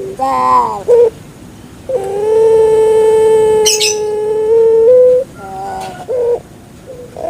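A puter pelung, a long-cooing domestic dove, cooing. A short falling note and a brief note come first, then one long drawn-out coo held about three seconds that steps up slightly at its end, then a few short notes.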